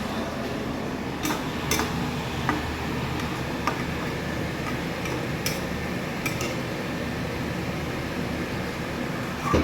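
Utensil clicking and tapping against a wok or pan while the pad thai sauce is made, about seven scattered light knocks over a steady background hum.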